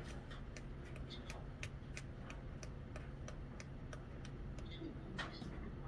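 Light ticks of a small container of dried mustard being tapped to shake the powder out into a measuring spoon, about four taps a second.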